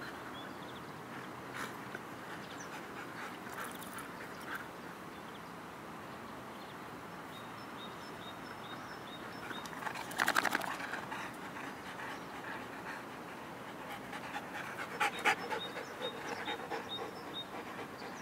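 Dogs panting after rough play, a boxer among them, with two short, louder noisy bursts about ten and fifteen seconds in.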